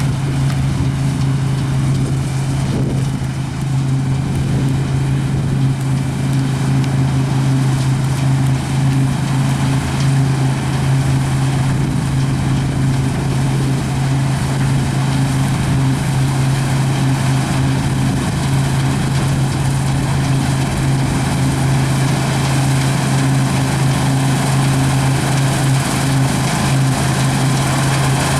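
Diesel engine of a large farm harvesting machine running steadily at constant speed, a continuous loud low drone.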